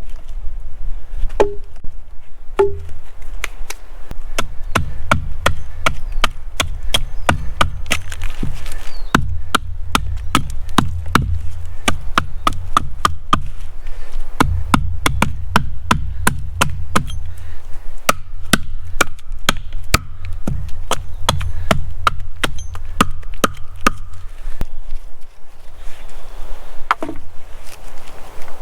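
Wood being chopped by hand with a blade: an irregular series of sharp chopping blows, about one or two a second, with a few short pauses.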